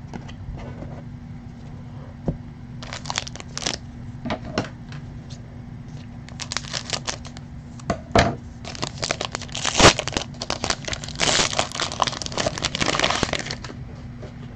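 Foil wrapper of a baseball card pack being torn open and crinkled, in irregular crackly bursts with sharp clicks, densest and loudest from about nine to thirteen and a half seconds in.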